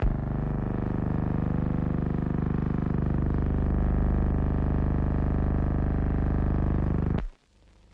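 A loud, steady droning tone with many overtones, like a held synthesizer or organ chord. It starts suddenly and cuts off abruptly after about seven seconds.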